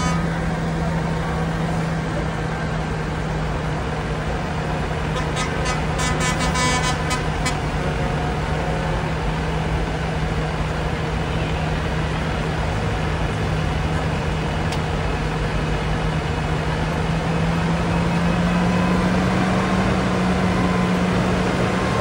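Large farm tractor's diesel engine running steadily as it rolls slowly forward at the head of a convoy, with other truck engines behind it. The engine note rises slightly and gets louder near the end as the tractor comes closer. A short run of sharp clicks comes about six seconds in.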